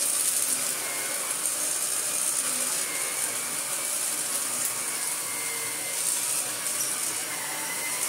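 Vacuum cleaner running with an electric power nozzle fitted, its motorised brush head adding to the noise of the suction; a steady rushing sound with a faint wavering whine.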